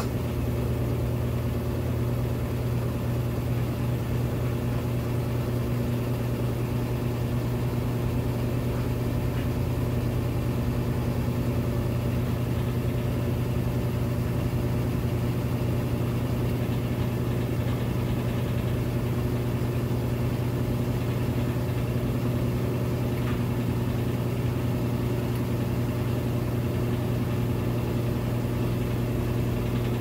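Brastemp BWK14 14 kg top-load washing machine in its spin cycle, the basket of jeans spinning at a steady speed with a steady, even motor hum.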